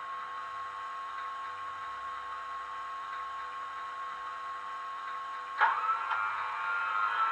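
DCC sound decoder in a Hornby Class 87 model playing a Class 87 electric locomotive's sounds through the model's small speaker: a steady whine. About five and a half seconds in, a click sounds and the whine steps up to a higher pitch.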